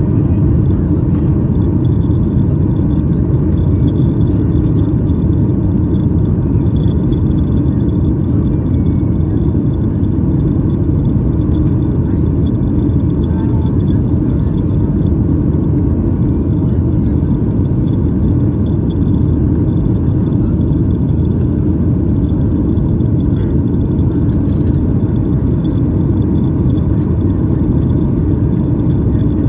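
Steady cabin roar of a Boeing 737-800 in its climb after takeoff: its CFM56-7B turbofan engines and the rushing airflow heard from a window seat over the wing, with a faint steady high whine.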